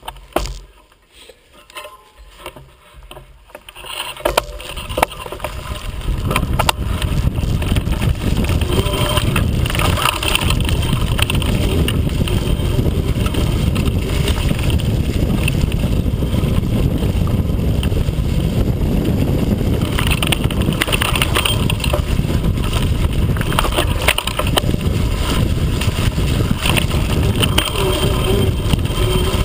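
Quiet for the first few seconds, then from about five seconds in a steady, loud rumble and rattle of an off-road bike riding a rough forest trail, as heard by a camera mounted on its handlebars.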